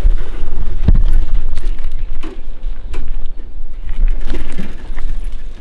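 An old bicycle carrying a wooden fish box rattling and knocking as it is ridden up, stopped and wheeled, with several separate clacks over a steady low rumble.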